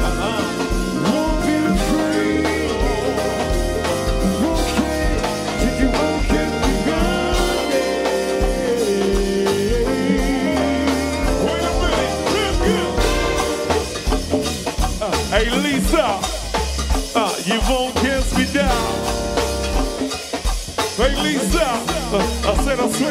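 Live band playing an R&B song: a drum kit keeps a steady beat with regular kick-drum thumps under sung vocal lines that waver and bend in pitch, more so in the second half.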